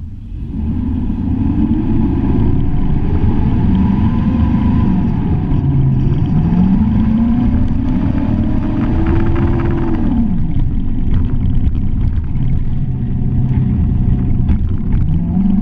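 Off-road truck engine under throttle while driving on sand dunes. The revs climb and fall with the throttle and drop off sharply about ten seconds in, then rise again near the end, over a steady rumble from the drivetrain and the ride.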